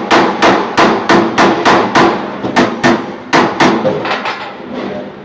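Rapid hammer blows on metal, about four strikes a second, with a short pause after about three seconds and weaker blows near the end.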